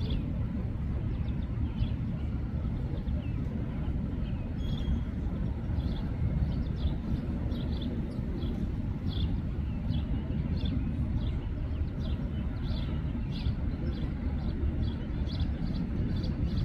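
Steady low outdoor rumble with a small bird chirping over it, short high chirps repeating several times a second from about five seconds in.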